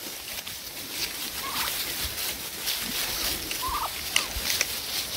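Domestic turkeys giving a few short, spread-out calls over faint rustling.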